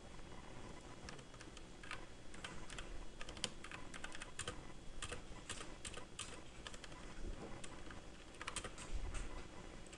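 Computer keyboard keys being typed: irregular clusters of quick clicking keystrokes, with a pause late on and a short flurry again near the end.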